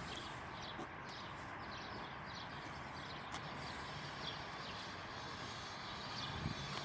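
Small birds chirping repeatedly over a steady outdoor background noise.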